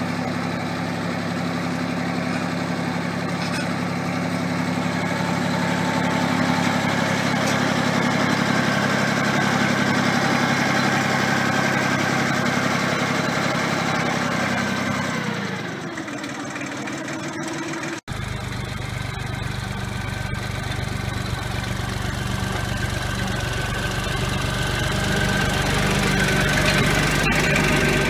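Compact tractor engine running steadily while pulling a pipe-burying subsoiler through turf. The engine note falls about fifteen seconds in; after a brief dropout near eighteen seconds the engine runs on, growing louder near the end.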